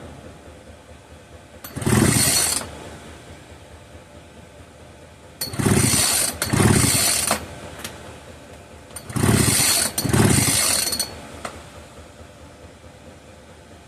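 Poulan Farmhand 2900 chainsaw's recoil starter cord pulled five times in short rasping pulls: one, then two pairs. The engine turns over without firing, because the ignition is giving no spark.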